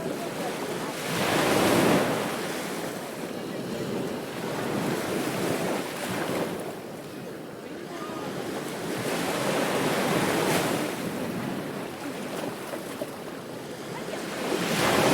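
Ocean surf breaking on a beach, a steady wash of waves that swells and ebbs in surges a few seconds apart, the biggest about two seconds in and again near the end.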